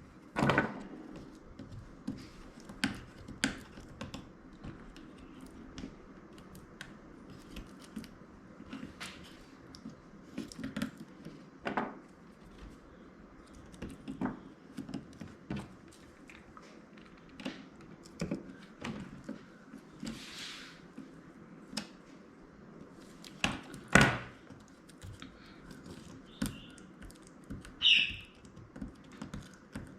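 Scattered small clicks and taps of a precision screwdriver and tools working on the screws inside an opened iPhone, with one louder click about four-fifths of the way through.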